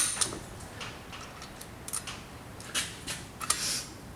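A sharp metallic click, then a few lighter clicks and taps spread through the rest: hand tools and a driveshaft bolt being handled while the bolt is fitted under the car.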